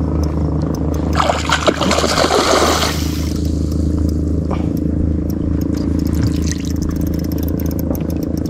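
A steady low motor hum, with a splash of water lasting about two seconds starting a second in, and scattered small clicks.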